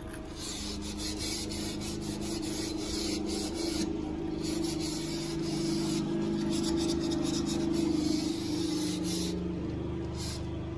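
Steel wool pad scrubbing greasy grime off a window frame and track: a continuous rasping rub, briefly pausing about four seconds in and again near the end, over a low steady hum.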